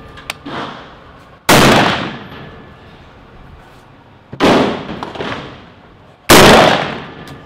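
Three shots from a scoped Daniel Defense AR-15 rifle, about three seconds and then two seconds apart. Each is a sharp crack that trails off and comes back as a short echo.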